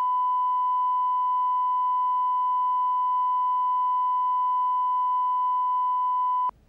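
Steady 1 kHz line-up tone at the head of a BBC videotape, a single pure beep-like tone with faint overtones, held at constant level as the reference for the recording before the programme starts. It cuts off abruptly just before the end.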